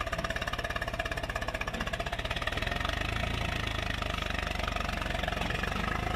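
Swaraj tractor's diesel engine labouring under load as it drags a loaded trolley out of deep sand. Its regular pulsing gives way to a steadier, slightly louder sound about two and a half seconds in.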